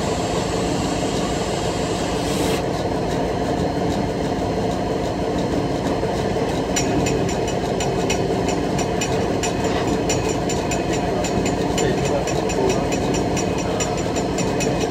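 Diesel-electric locomotive engine idling steadily, heard from inside the cab while the locomotive stands still. A hiss cuts off suddenly about two and a half seconds in. A rapid, regular ticking starts about seven seconds in and carries on over the engine.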